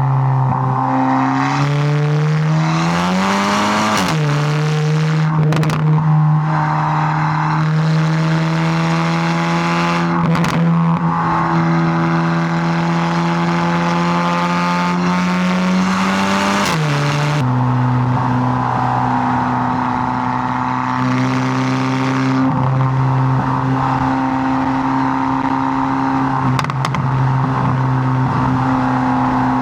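Volkswagen MK8 GTI's turbocharged 2.0-litre four-cylinder heard through a Milltek cat-back exhaust and downpipe while driving. The engine note climbs and drops suddenly with an upshift about four seconds in, rises slowly under steady throttle, drops again with another shift a little past halfway, then holds steady.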